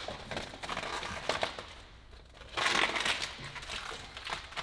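Plastic paint protection film crinkling and rustling as it is handled, with a louder stretch of crinkling a little past halfway.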